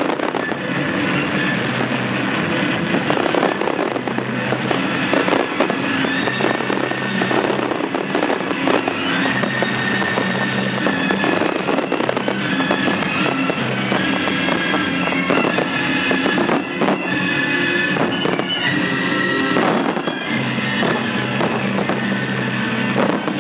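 Fireworks display: rapid aerial bursts and dense crackling, with music playing along with the show.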